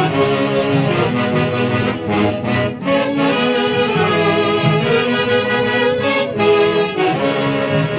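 A live Huancayo orquesta típica playing festive music without a break, with reed and brass wind instruments carrying the melody.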